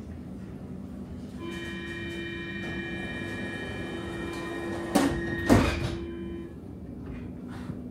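Stockholm metro train standing at a platform: a steady door-closing warning tone with several pitches sounds for about five seconds. Near its end, the sliding doors shut with two loud thuds half a second apart.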